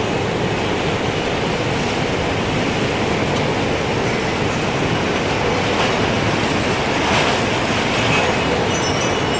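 Strong gusting wind, a steady rushing noise that swells a little past the middle, with a few faint, high wind chime tinkles near the end.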